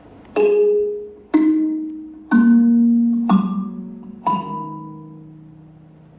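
Music: five notes on a tuned mallet instrument such as a marimba, struck about a second apart and stepping down in pitch, each ringing on and fading.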